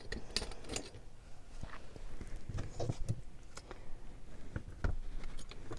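Scattered light clicks and taps with a few soft thumps, from small metal costume-jewellery brooches being handled and set down.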